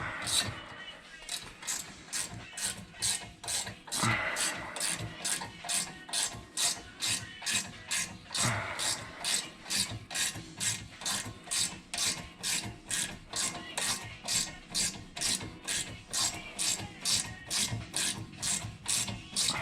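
Hand ratchet wrench clicking steadily, about two clicks a second, as it runs a brake caliper mounting bolt in. Brief scraping of the tool is heard about four and eight seconds in.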